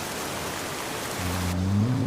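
Steady rain hissing, with a man's snore: one low, drawn-out snore begins about a second in and rises slightly in pitch as it goes. About a second and a half in, the rain's high hiss drops away and the rain turns duller.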